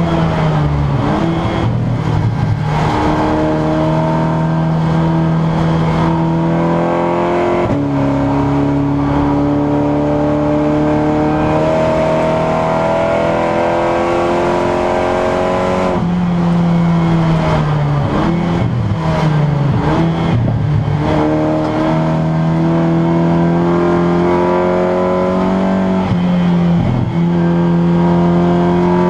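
Seat Leon Supercopa's turbocharged four-cylinder engine heard from inside the race car's cabin, pulling through the gears under hard acceleration. Its pitch climbs, drops at an upshift about eight seconds in, and falls with short rev blips on downshifts about a second in and again over several seconds past the halfway point. A steady hiss of tyre and road noise lies underneath.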